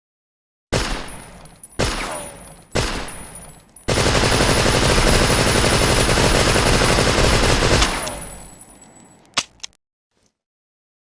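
Thompson submachine gun (Tommy gun) firing: three single shots about a second apart, then a sustained burst of rapid automatic fire lasting about four seconds, with a long echoing tail. Two sharp clicks follow near the end.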